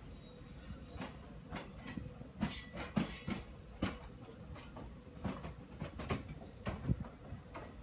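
Train wheels clattering over rail joints and points: a steady rumble broken by irregular sharp metallic clanks, a few a second, the loudest about two and a half, three and seven seconds in.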